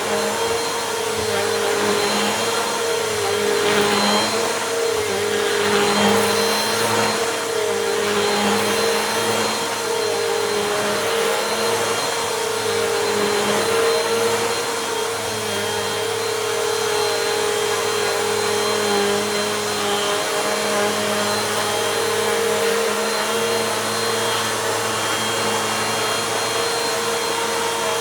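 Bissell Compact vacuum cleaner running steadily at one pitch as it is pushed over a rug, sucking up gritty dirt, with faint crackles early on.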